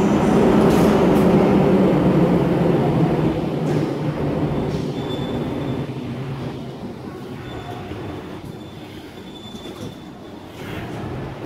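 EU07 electric locomotive and its coaches rolling slowly past at close range. The low running rumble of motors and wheels is loudest as the locomotive goes by and then gradually eases off. A faint thin squeal comes and goes from the wheels.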